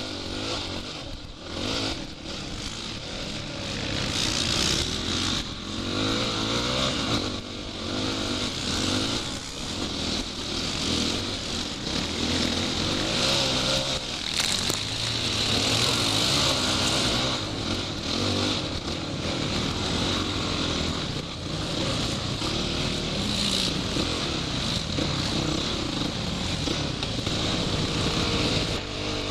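Off-road motorcycle engine running hard under constantly changing throttle, its pitch rising and falling, with strong wind rush on the microphone.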